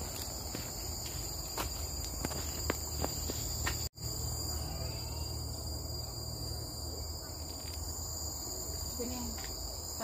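Steady, high-pitched drone of many insects in tropical forest, held at several pitches at once. Light footsteps tick over it in the first few seconds, and the sound drops out for an instant about four seconds in.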